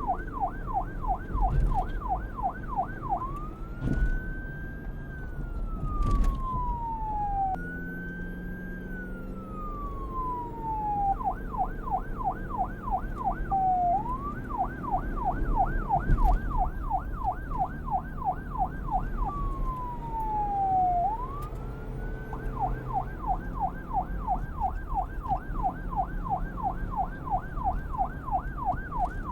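Police car electronic siren switching back and forth between a fast yelp, about four up-and-down sweeps a second, and a slow wail that climbs and then falls over a few seconds. A low rumble runs underneath, and a few sharp knocks stand out, the loudest about four, six and sixteen seconds in.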